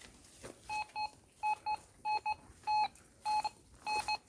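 Metal detector giving short, same-pitched beeps, many in quick pairs, at irregular intervals, with one longer beep about three seconds in: it is signalling metal targets in the ground.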